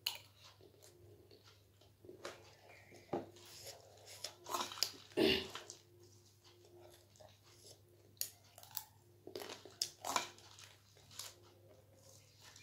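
A person chewing and crunching crunchy snack food in irregular bites, with wet mouth sounds between the crunches; the loudest bite comes a little after five seconds in.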